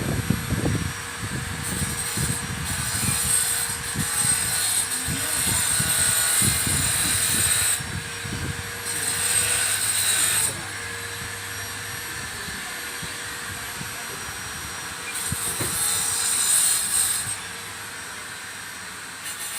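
Handheld grinder with a tile-cutting disc cutting ceramic tile: the motor runs with a steady whine, and three times the disc bites into the tile with a loud, gritty high-pitched grinding, easing back to a quieter free spin in between.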